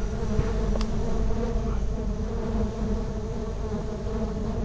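Steady buzzing hum of many bees swarming around their split-open nest.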